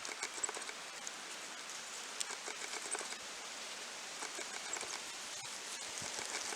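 Outdoor ambience in woodland: a faint steady hiss with scattered light ticks and rustles.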